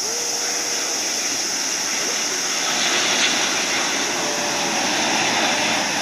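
Boeing 787 airliner on final approach with gear down, its jet engines giving a steady rushing rumble that swells about halfway through as it passes close by. A constant high-pitched hiss runs underneath.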